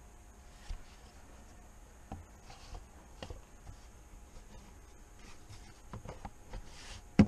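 Scattered light clicks and knocks of plastic lines, connectors and parts being handled under the hood, with one sharper, louder knock near the end.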